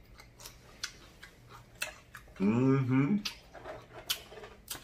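Close-miked chewing: sparse wet mouth clicks and lip smacks, with a short hummed "mmm" of enjoyment about halfway through.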